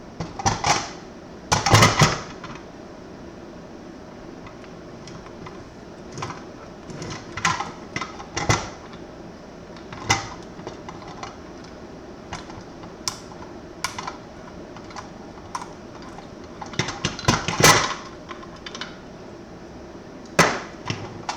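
Irregular clicks, taps and knocks of hardware being handled as parts are removed from a Nebra Helium miner's case, with louder clusters of knocks near the start and again about three-quarters of the way through.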